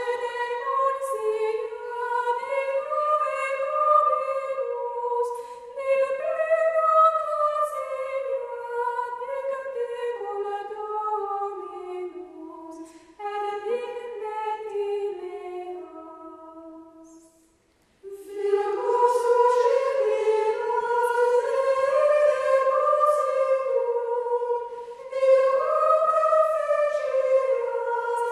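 Choir singing slow, sustained vocal music with no beat. The singing fades out about 17 seconds in and starts again a second later.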